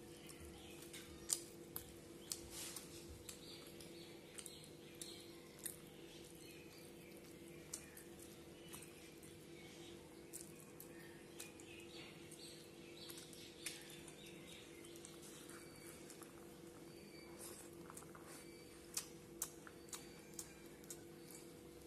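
Quiet eating by hand: chewing and wet mouth clicks with scattered sharp little ticks as fingers pick up rice and fish, over a faint steady hum.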